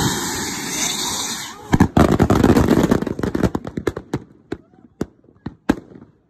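About a hundred firework rockets fire at once with a steady rushing hiss. Under two seconds in, they break into a dense crackle of bangs as they burst, which thins to a few scattered pops near the end.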